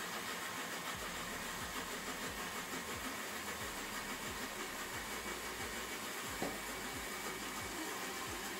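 Countertop jug blender running steadily, its motor blending soaked black-eyed beans with only a little water, just enough for the blades to keep turning. A brief knock sounds about six seconds in.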